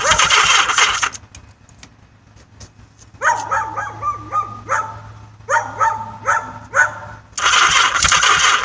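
Yamaha XS1100's inline four being cranked on the electric starter without catching, a no-start the owner puts down to a weak battery; the cranking stops about a second in and starts again near the end. In the pause a dog barks about nine times in quick runs.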